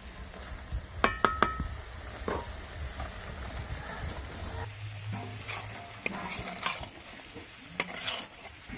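Metal spatula stirring and scraping bottle gourd greens in a metal kadai as they fry, with a low sizzle. About a second in the spatula strikes the pan several times in quick succession with short ringing clinks, and more scrapes and taps come near the end.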